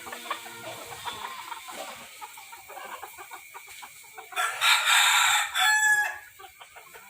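Young bantam cockerel crowing once, a loud crow of about a second and a half starting about four seconds in, over scattered clucking from the flock.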